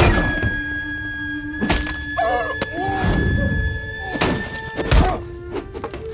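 Hand-to-hand fight sound effects: several sharp thuds and knocks of blows and hands hitting a train tabletop, spaced a second or so apart, over a music score with long held notes.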